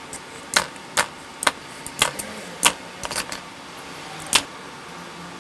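A blade cutting a thermal pad along a steel ruler: a run of short sharp clicks and scrapes, roughly two a second and uneven, stopping about a second before the end.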